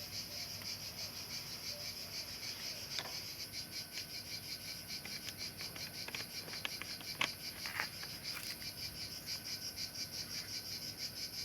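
Crickets chirping steadily in a fast, even trill, with a few light clicks and taps from parts being handled.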